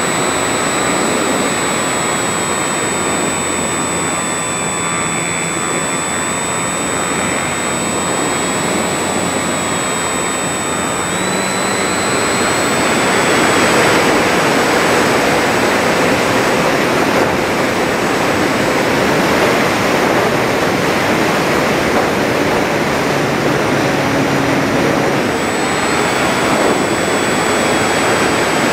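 Electric motor and propeller of a Volantex Phoenix 1600 glider running, a steady whine over wind rush on the onboard microphone. About twelve seconds in the whine rises briefly, then sinks under louder rushing wind as the glider dives, and the whine comes back near the end.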